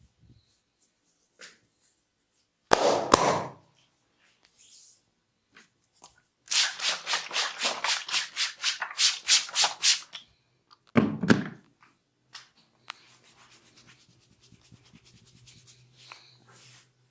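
Hands rubbing briskly in a massage: a run of quick, even rubbing strokes, about four a second, lasting a few seconds, with a single heavier rub or thump before it and another after it.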